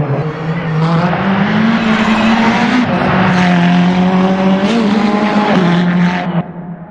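Ferrari 488 GT3's twin-turbo V8 race engine running hard under power, its note climbing slowly with a few brief breaks. The sound drops away sharply about six seconds in.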